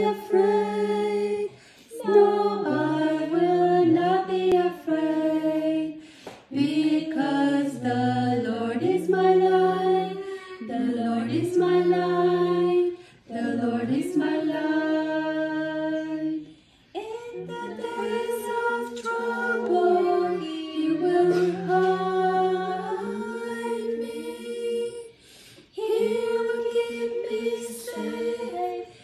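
Unaccompanied singing of a worship song, with women's voices carrying the tune in phrases of a few seconds each and short pauses between lines.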